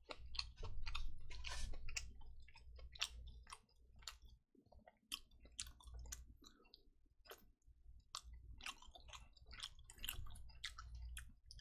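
Chewing a mouthful of jjapaghetti noodles with mozzarella cheese: soft, wet mouth clicks come irregularly, many times over.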